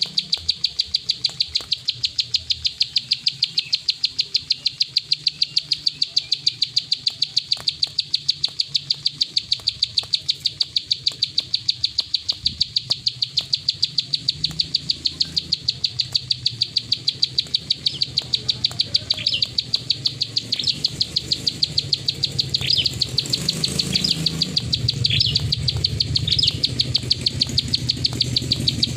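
Plain prinia giving its rapid clicking 'klik' call, an even run of sharp ticks at about five a second. Separate short chirps join in during the last third.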